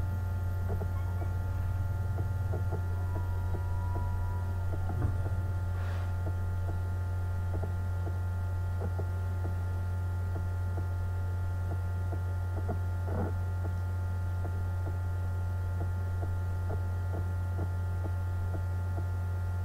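Steady low electrical hum with a ladder of fainter steady tones above it, and a few faint soft ticks.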